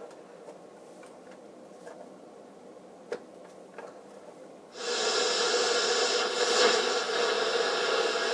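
General Electric 7-4612BK clock radio being switched to AM: a few faint clicks from its controls, then about five seconds in its speaker suddenly comes on with loud AM static, a hiss laced with steady interference tones, as the dial is tuned.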